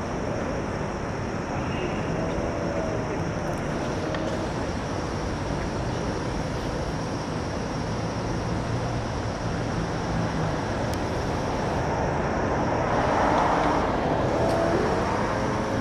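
Steady city traffic noise, a constant rumble and hiss that swells a little near the end as a vehicle passes.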